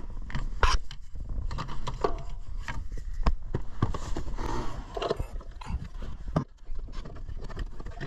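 Irregular plastic clicks, knocks and scrapes of a screwdriver prying a relay out of a car's under-dash fuse and relay box, with hands and tool rubbing against the dash trim.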